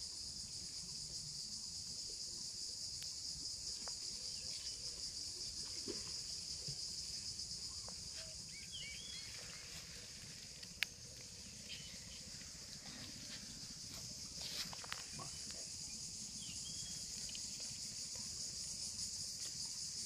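Steady, high-pitched buzzing of insects in the background, with a few faint short chirps and one sharp click a little after halfway.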